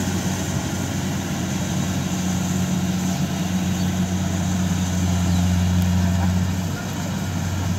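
Kubota DC68 combine harvester's 68 hp diesel engine running steadily as it harvests rice, a low even hum that dips briefly near the end.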